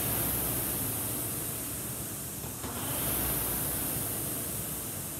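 Concept2 indoor rowing machine's air-resistance fan flywheel whirring, surging with each drive stroke about every three seconds at a low rate of 20 strokes a minute.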